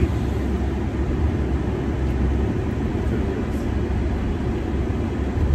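Steady low rumble of a car's engine and tyres on the road, heard inside the moving car's cabin.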